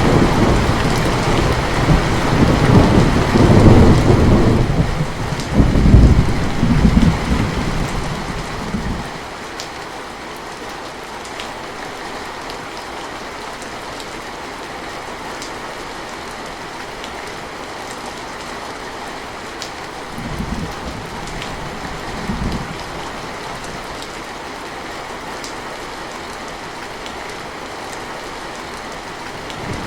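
Steady rain falling, with a long low rumble of thunder for the first nine seconds or so that then dies away. Two short, softer rumbles come about two-thirds of the way through.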